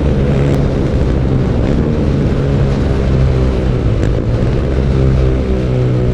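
BMW R nineT Urban G/S's air/oil-cooled flat-twin boxer engine, through its stock exhaust, running steadily under way. Its pitch shifts only slightly up and down.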